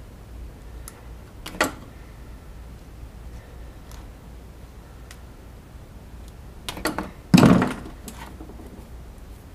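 A few hard knocks and thuds: a sharp knock about a second and a half in, then a cluster of louder clunks about seven seconds in, with faint ticks between.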